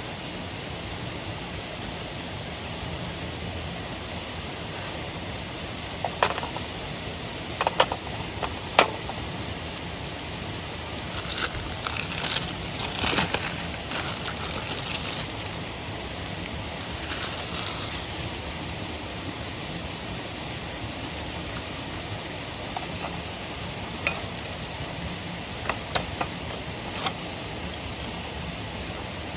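Steady rush of a nearby mountain stream and waterfall, with scattered sharp clinks and knocks of metal camp cookware, a few around six to nine seconds in and more near the end. Brief rustling bursts come about midway.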